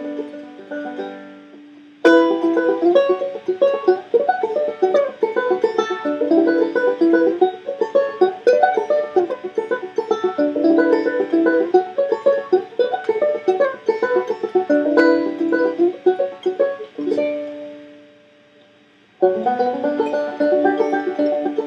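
Five-string resonator banjo picked lightly in a quick, flowing run of notes. It opens on a ringing chord that fades out, the picking starts again about two seconds in, pauses on another fading chord about seventeen seconds in, and starts again near the end.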